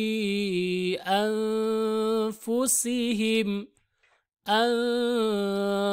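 A single voice chanting Quranic Arabic in slow tajweed recitation, drawing out long held syllables of the verse words "yukhfūna fī anfusihim". It pauses for nearly a second a little past the middle.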